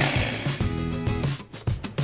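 Background music with a repeating bass line and a steady beat, with a short noisy rush at the very start.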